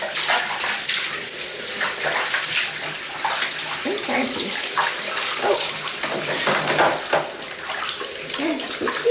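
Water running and splashing in a bathtub while hands wet and rub a long-haired cat's fur: a steady rush of water broken by frequent small splashes.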